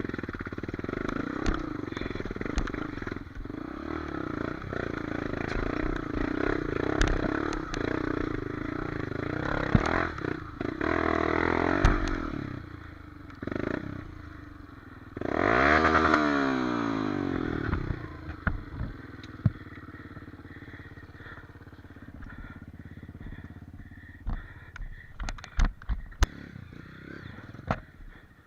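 Off-road motorcycle engine running and being revved on a rocky climb, with two hard revs about 11 and 16 seconds in. The engine then drops back, leaving scattered clattering knocks near the end.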